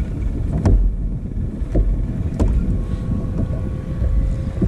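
Wind rumbling on the microphone and sea water lapping against a plastic kayak's hull, with a few sharp clicks.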